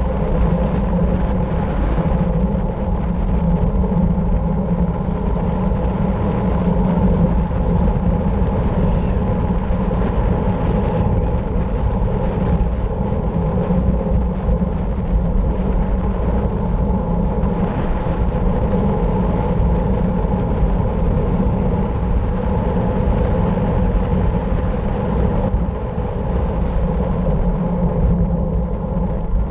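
Steady rush of wind and tyre noise from a fast descent down a mountain road, picked up by a camera mounted low on the moving vehicle.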